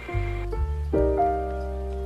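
Instrumental background music: sustained chords that change a few times in the first second, then hold.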